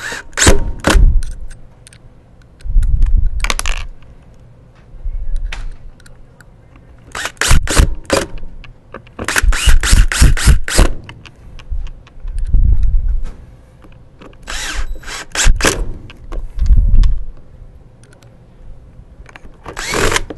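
Cordless drill-driver running in several short bursts, each a second or so long with pauses between, as it drives screws back into a wet/dry vacuum's motor plate; clusters of sharp clicks come with several of the bursts.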